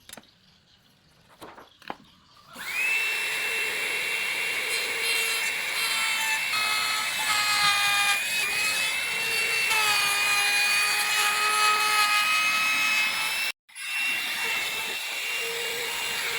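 Electric wood router spinning up about two and a half seconds in, then running with a high steady whine while it cuts a decorative pattern into a wooden cabinet door, its pitch sagging and recovering as the bit takes load. The sound breaks off abruptly for an instant near the end and resumes.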